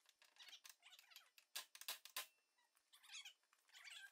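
Faint bird chirping, with a few sharp clicks about one and a half to two seconds in.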